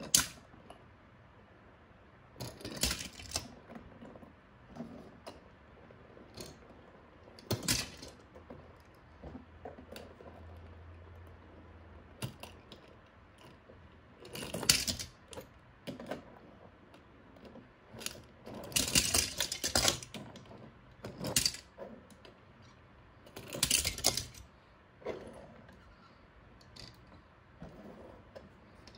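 Die-cast metal toy cars rolling over a wooden tabletop and dropping one after another through a slotted rubber flap into a hole, clinking and clattering as they fall. About eight separate bursts of clatter, the longest about two-thirds of the way through.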